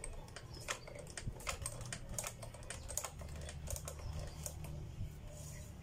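A rapid, irregular run of light clicks over a low steady hum, from a motorcycle's front brake lever being pumped to settle the freshly refitted twin calipers.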